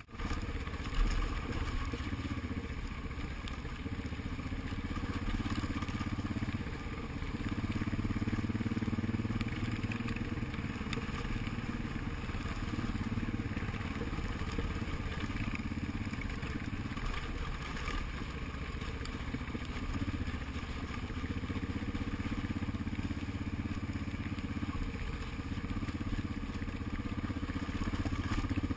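Motorcycle engine running under way, its note swelling and easing in long stretches with the throttle. There is a single sharp knock about a second in.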